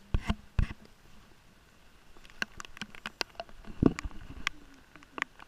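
Irregular knocks and sharp clicks. Three knocks come in the first second, then after a quiet gap a rapid, uneven scatter of clicks with one duller thump partway through.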